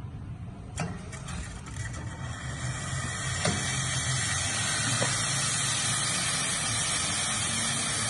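Steam wands of a two-group Espresso Perfetto espresso machine opened, hissing steam that builds over the first few seconds and then blows steadily. There is a click about a second in and a low hum underneath.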